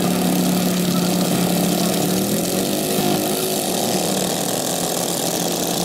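Small petrol engines of racing ride-on lawnmowers running, with a steady engine hum. About two seconds in the hum breaks up into a wavering, uneven engine sound.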